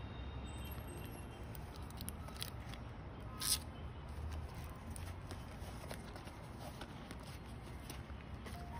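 Faint handling noises from a canvas pouch and its metal buckle: scattered light clicks and rustles, with one brief crinkle of the buckle's protective plastic film about three and a half seconds in, over a steady low background noise.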